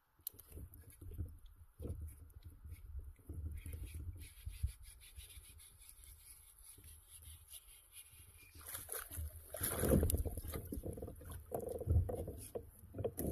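Handling and movement noise aboard a fishing kayak: low rumbling with scattered knocks and clicks, growing louder and fuller near the end.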